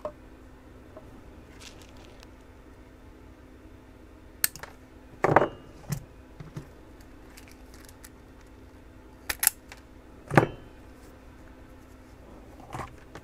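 Short clicks, knocks and brief scrapes from hands handling stiff insulated wire inside a metal power-supply case, about five separate sounds several seconds apart, the loudest two about five and ten seconds in.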